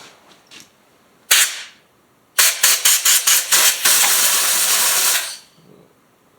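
Compressed-air blow gun blasting dirt off a chainsaw. One short blast comes first, then a quick run of about seven short bursts that merges into a steady hiss of about a second and a half before it cuts off.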